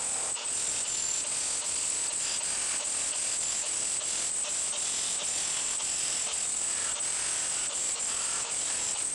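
Soft, steady background music with a high shimmer; the rotary hammer itself is not heard.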